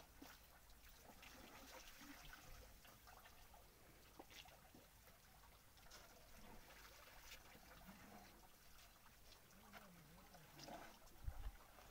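Near silence: faint outdoor ambience with a few scattered soft ticks.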